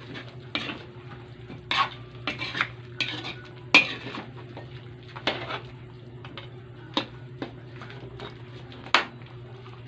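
Metal spoon stirring braised pork pieces in a metal wok: irregular scrapes and clinks of metal against the pan, the loudest a little under four seconds in, over a low steady hum.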